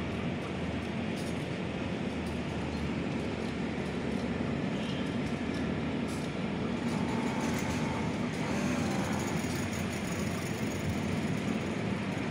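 Steady rumble of traffic and rail, with an electric commuter train approaching on the main line, growing slightly louder partway through.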